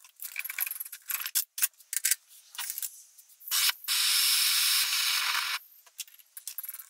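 Scattered light metallic taps and clinks of hand tools on a pin in a cast-iron flywheel, then a hand-held propane torch hissing for about two seconds as it heats the pin to free it, cutting off abruptly.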